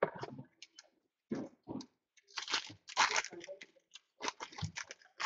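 Foil wrapper of a Topps Tier One baseball card pack crinkling and tearing as it is handled and pulled open, in irregular crackling bursts, loudest about three seconds in.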